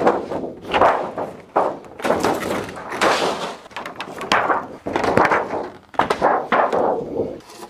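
Thin PVC-coated aluminium trim-coil cladding being pulled off a camper's wooden wall, the sheet flexing and rattling in a series of irregular noisy bursts with several thunks.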